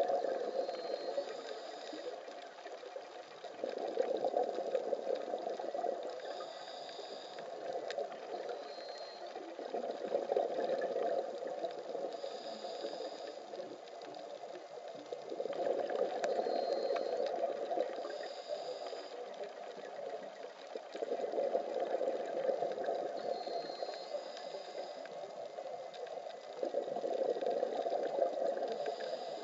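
Scuba diver breathing through a regulator underwater: a rushing burst of exhaled bubbles about every five to six seconds, with a short hiss of each inhale in between.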